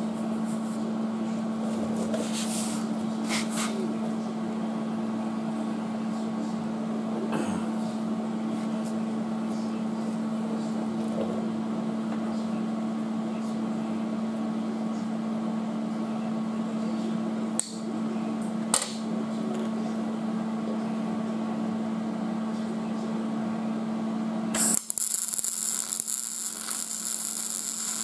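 A steady hum runs throughout, with a couple of sharp knocks around the middle. About three seconds before the end, a MIG welder strikes an arc and crackles steadily while plug-welding drilled holes to fix a steel inner rocker panel back in place.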